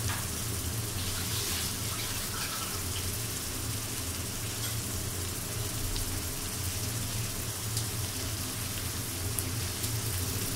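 Fish pieces sizzling steadily in hot oil and spice paste in a pan, a hiss with light scattered crackle.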